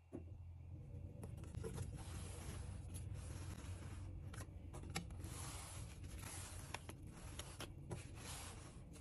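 Close rubbing and crackling handling noise, coming in several swells with scattered sharp clicks.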